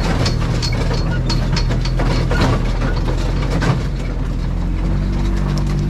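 Off-road vehicle engine running under a dense clatter of irregular clicks and rattles. The engine note rises near the end.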